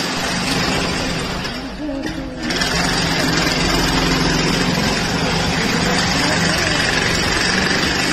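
A small engine running steadily. Its sound drops briefly about two seconds in, then picks up again and holds.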